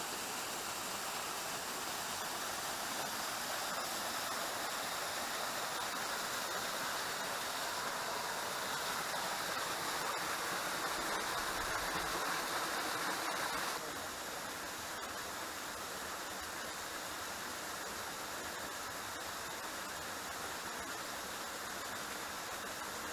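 Waterfall water rushing steadily, an even hiss. About fourteen seconds in it turns suddenly a little quieter and duller.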